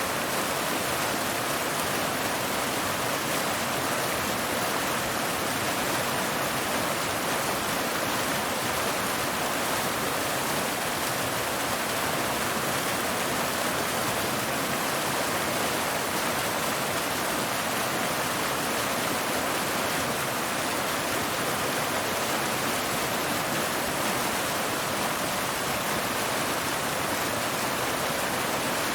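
A waterfall: water cascading over rocks in a steady, even rush that never changes, bright and hissy with little low rumble.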